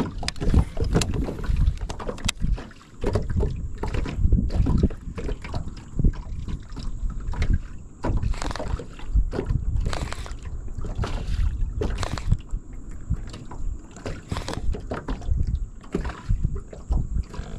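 Wind rumble on the microphone aboard a small fishing boat, broken by many short knocks and taps, with a thin steady high whine.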